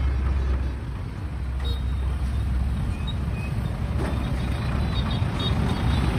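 Shibaura V52 compact tractor's diesel engine running steadily with the throttle raised, a deep even drone.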